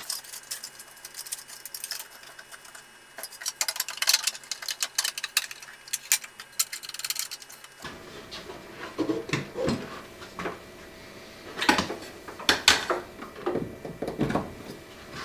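Hands fitting a 40-grit sanding belt onto a 1" by 30" belt sander: irregular clicks, taps and rubbing as the belt and the sander's parts are handled, with no motor running.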